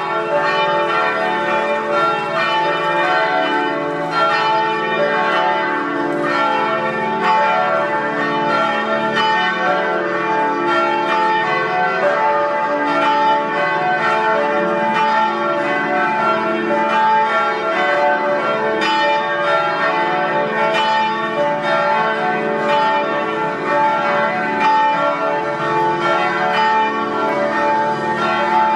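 Several church bells ringing together in a continuous peal, their strikes overlapping steadily with no pause.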